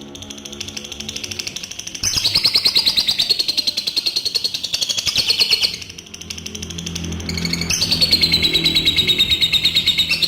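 Adult lovebird giving its long 'ngekek' song: long, fast chattering trills of rapidly repeated high chirps, several seconds at a stretch with short breaks about two seconds in and again about six seconds in. Soft background music runs underneath.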